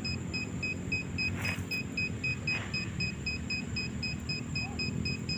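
Handheld Aerox digital water detector beeping steadily, about three short high beeps a second, over a low steady hum.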